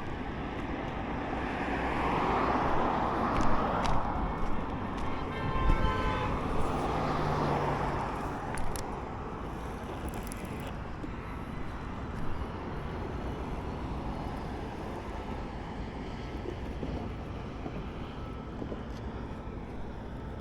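Road traffic going by, with one vehicle passing loudest a few seconds in. A brief vehicle horn toot sounds about six seconds in, then steady traffic noise follows.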